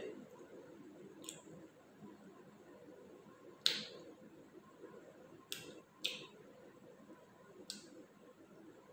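Quiet eating sounds: about five short sharp clicks and smacks spread over several seconds, the loudest about three and a half seconds in, over a faint steady room background.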